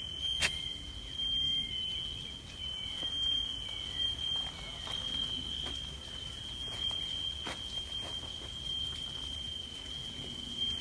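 Fire alarm sounding one steady, unbroken high-pitched tone, set off in a storm-wrecked building. A few sharp knocks cut in, once about half a second in and again past the middle.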